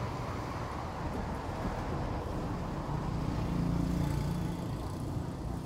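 Steady low rumble of street traffic, with one vehicle's engine hum growing louder about three seconds in and fading a little over a second later.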